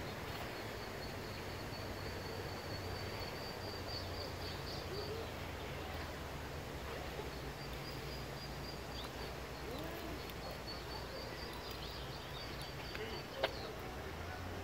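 Outdoor ambience: a steady low hum under a thin, high, steady whine that drops out for a couple of seconds in the middle, with soft hoot-like calls now and then and a single sharp click near the end.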